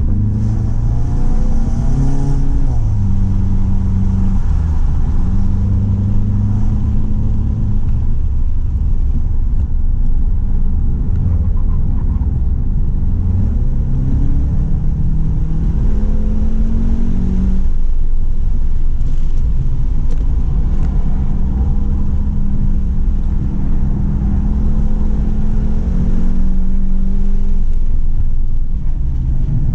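Stage 2 tuned 2017 VW GTI's turbocharged 2.0-litre four-cylinder being driven hard around a race track, its engine note repeatedly climbing under acceleration and then stepping down, as on a lap with gear changes and braking for corners.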